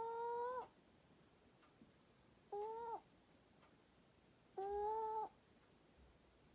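A sleeping pet snoring, a pitched, squeaky note on each breath. The note rises slightly at its start and holds for half a second to a second. It comes three times, about two seconds apart, the first already sounding at the start.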